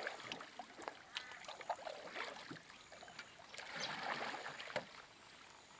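Canoe paddle strokes pulling through calm water during a bow draw turning stroke: soft swishing and splashing, with one swell about two seconds in and a longer, louder one near four seconds.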